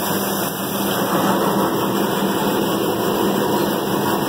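Combine harvester running steadily while harvesting soybeans: its engine and threshing machinery make a constant drone with a steady low hum.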